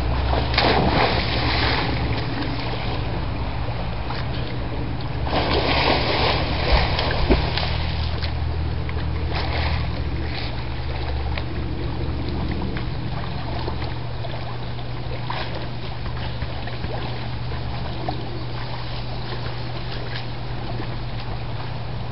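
Water splashing as a person flops into a backyard swimming pool: a burst about half a second in and a longer one around five seconds in, with smaller splashes later, over a steady low hum.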